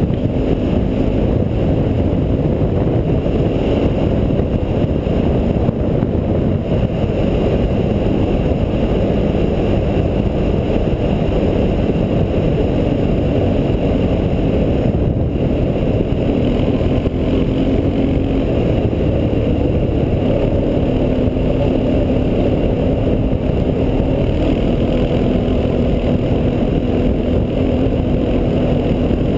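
Honda Foreman 500 ATV's single-cylinder four-stroke engine running at steady cruising speed, its note shifting slightly now and then, under a steady rush of wind and tyre noise on a gravel track.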